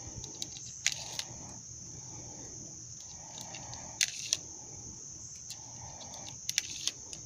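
Small .22 cartridges clicking as they are dropped one by one into a Marlin Model 60 rifle's tube magazine: sharp metallic clicks in pairs, about a second in, at about four seconds and again near the end.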